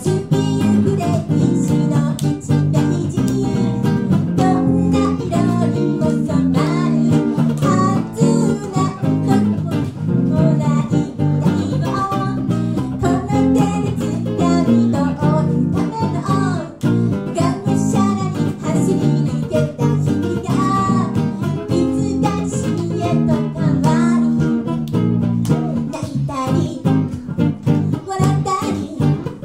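Live acoustic band playing a song: acoustic guitar strumming and picking with a second guitar, and a woman singing into a microphone.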